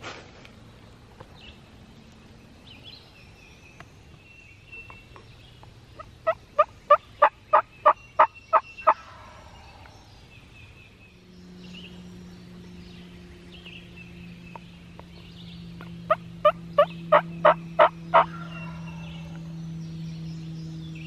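Two runs of loud turkey yelps, each about eight evenly spaced notes at roughly three a second, several seconds apart, with songbirds chirping faintly behind. A steady low hum sets in about halfway through and holds.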